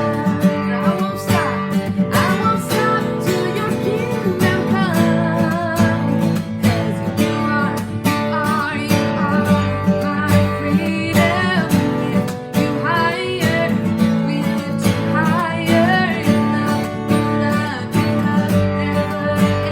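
Music with acoustic guitar strumming and a singing voice.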